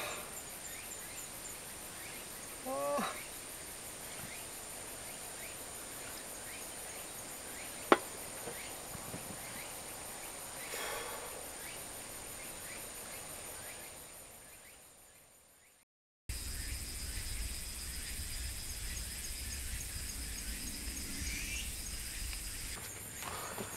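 Outdoor woodland background of insects chirping in a steady high pulsing drone, with a short call about three seconds in and a single sharp click near eight seconds. The sound fades out about two thirds of the way through, and after a cut a different outdoor background takes over, with a low rumble under continued insect chirping.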